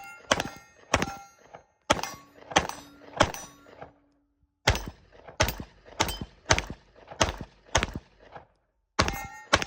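Glock pistol fired in a steady string of about thirteen shots, roughly one every two-thirds of a second, with a short break after the fifth and a longer pause before the last two.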